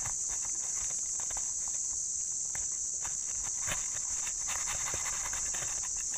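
Steady high-pitched chorus of cicadas. Scattered light clicks and taps sound over it.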